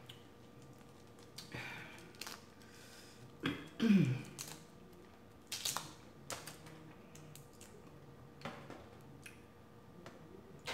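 Boiled jumbo prawn being peeled by hand, its shell giving scattered small crackles and clicks, mixed with close-up chewing and lip smacks. About four seconds in comes a brief falling hum from the eater, the loudest sound.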